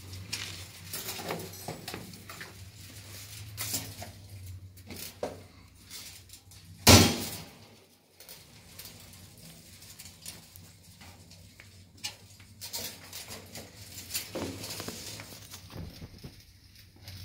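Tie wire being twisted onto steel rebar crossings with a hooked hand tool: repeated small scraping clicks of steel on wire, with one loud sharp knock about seven seconds in.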